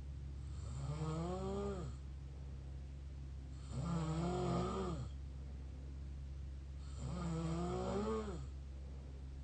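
Mouth snoring: three long snores about three seconds apart, each a drawn-out tone that rises and then falls in pitch.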